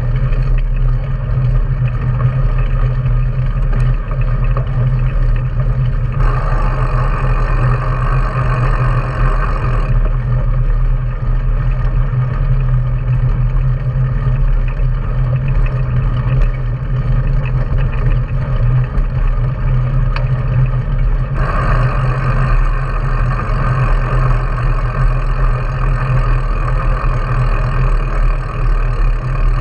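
Wind buffeting the microphone of a handlebar-mounted action camera on a mountain bike moving along a paved road, a steady, loud low rumble mixed with tyre noise. A brighter hiss starts and stops abruptly, from about six to ten seconds in and again from about twenty-one seconds in.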